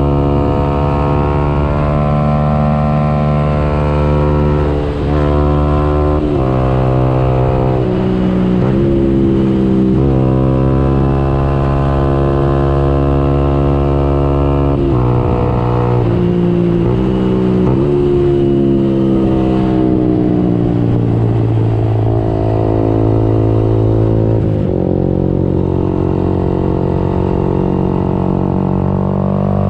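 Yamaha YZF-R125's single-cylinder four-stroke engine, loud through a Radical Racing exhaust with the dB-killer removed, accelerating hard through the gears: the pitch climbs and drops back at each upshift, several times in the first half. Later the pitch falls away as the bike slows, then holds steady near the end.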